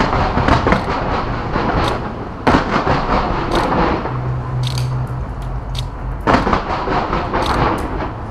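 Aerial fireworks bursting in a dense barrage: three big booms, at the start, about two and a half seconds in and about six seconds in, each followed by a long wash of crackling, with sharp pops scattered in between.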